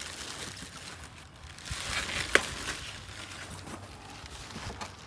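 Rustling handling noise with faint scattered ticks, swelling briefly, and one sharp click a little over two seconds in.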